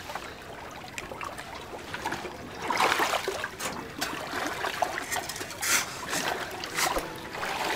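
Dry pellet fish feed being scooped with a plate from a heap in a boat and thrown onto a pond: the pellets rustle and patter onto the water, with water splashing. The louder swells come about 3 seconds in and again around 6 seconds.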